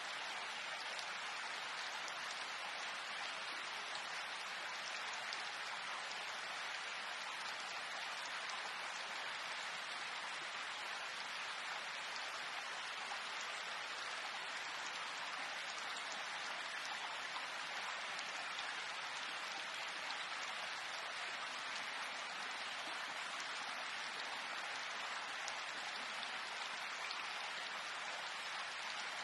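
Steady rain falling, an even patter of many drops with no single sound standing out.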